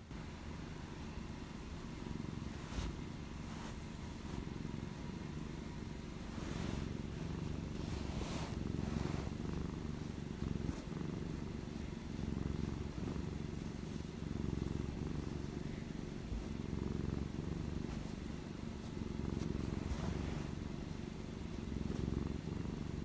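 Domestic cat purring, a low steady rumble heard close up, a sign of contentment as it dozes. A few faint rustles come through about 3 seconds in and again around 7 to 9 seconds in.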